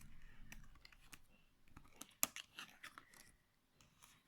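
A children's picture book being handled, with faint rustling and light clicks as pages are moved and one sharper click a little over two seconds in.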